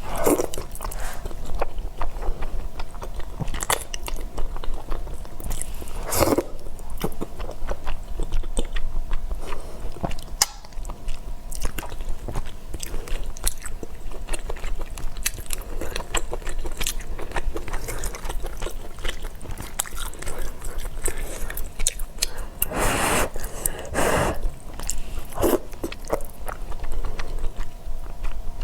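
Close-up chewing and biting of spicy fire noodles, with many small wet clicks and a few louder mouthfuls about six seconds in and again near the end.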